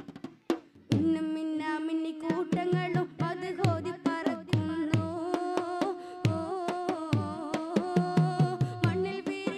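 Madh song, a Malayalam Islamic devotional song, sung by a solo male voice with long held, ornamented notes over a regular beat of drum strokes. The first second has only the drum strokes before the voice comes in.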